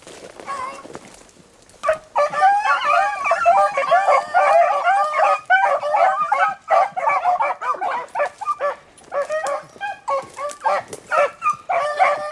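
A pack of beagles baying on a rabbit's scent, several hounds giving voice over one another. The bays are faint for the first two seconds, then the whole pack opens up together in a thick chorus. In the second half it breaks into more scattered bays.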